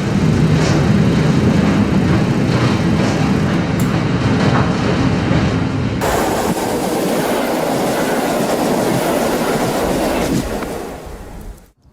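Train running on the rails: a loud, steady rumble with wheel clatter. The sound changes abruptly about halfway through, then dies away and cuts off near the end.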